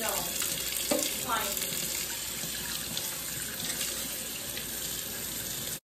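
Kitchen faucet running steadily into a stainless steel sink, the stream splashing over a makeup brush being rinsed under it.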